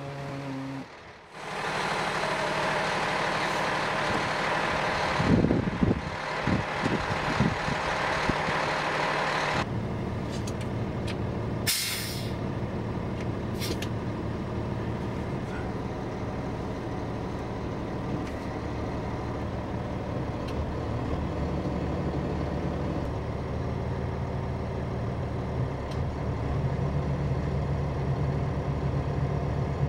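Fire engine's diesel engine running, with a loud rushing noise over it for the first ten seconds or so. About twelve seconds in comes a short sharp hiss of air as the air-operated pump shift lever is moved into pump. The engine hum then grows louder in the second half as the pump is engaged.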